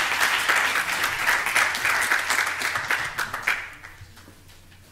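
Audience applauding, dense clapping that thins out and dies away about three and a half to four seconds in.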